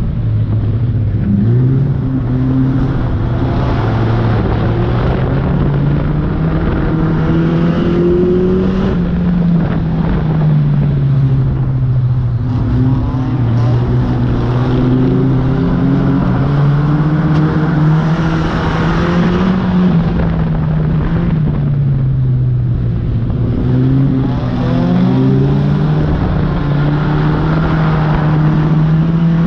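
Banger-racing car's engine heard from inside its stripped-out cabin, running hard under throttle. The engine note climbs and drops several times as the revs rise and fall.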